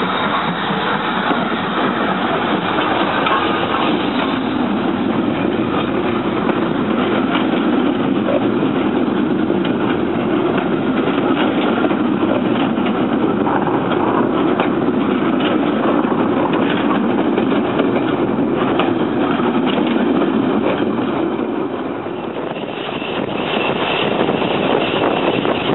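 Steam-hauled heritage train on the move, Great Western Railway 0-6-2 locomotive 5643 with its coaches: a steady running noise of the train that dips briefly near the end.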